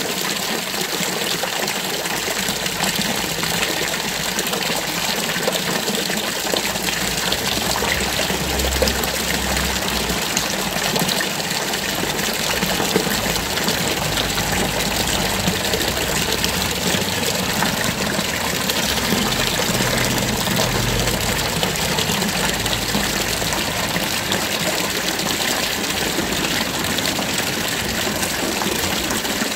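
Stone fountain's jet of water splashing steadily into its basin.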